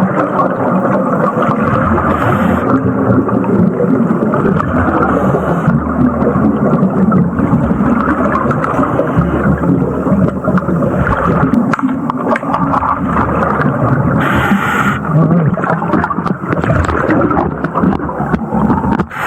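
Hydraulic chainsaw cutting old railroad timber underwater, heard through the water as a dense, uneven rumbling churn. There are brief hissing bursts about 2, 5 and 14 seconds in.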